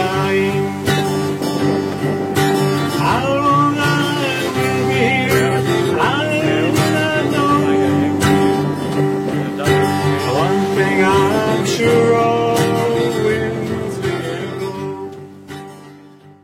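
Intro music led by acoustic guitar, with sustained notes and a gliding lead line above, fading out near the end.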